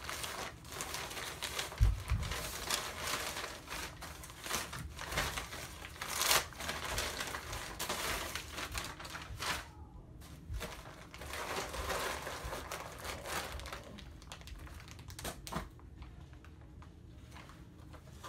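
Plastic packaging bag being handled, rustling and crinkling with irregular crackles. A low thump about two seconds in.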